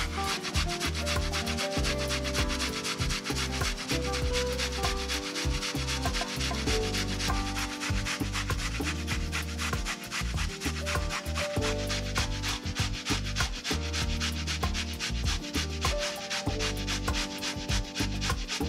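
A carrot is being grated on a stainless-steel box grater, making rapid, repeated rasping strokes, with background music underneath.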